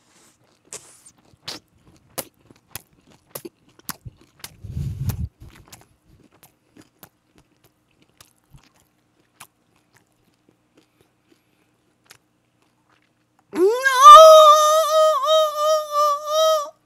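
Close-miked chewing of a mouthful of rice and pork wrapped in perilla leaf, with small wet mouth clicks over the first few seconds and a low thump about five seconds in. Near the end a man's voice sweeps up into one long, loud held note.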